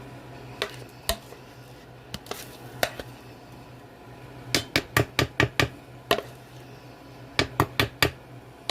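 A kitchen utensil knocking sharply against cookware while pound cake batter is moved into the pan: a few single knocks in the first seconds, then a quick run of about six in the middle and four more near the end, over a low steady hum.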